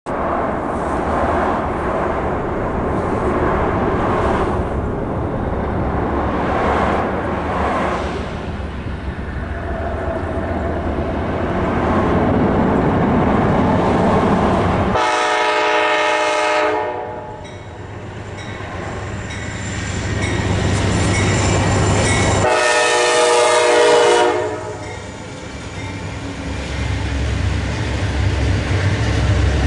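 Amtrak passenger train approaching and passing: the locomotive's horn sounds two long blasts about halfway through, and a third starts right at the end. Under the horn is the train's low rumble and the clatter of the cars rolling by, after a gusting, rushing noise in the first half.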